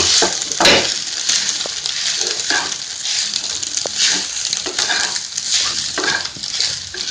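Soya chunk masala sizzling on a low flame in a frying pan while a spatula stirs it, scraping the pan in repeated strokes over a steady frying hiss.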